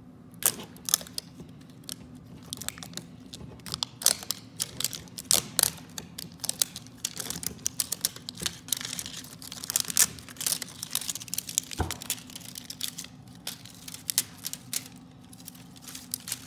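Crinkly plastic wrapper being peeled off an L.O.L. Surprise toy ball in one long spiral strip: irregular crackling and tearing.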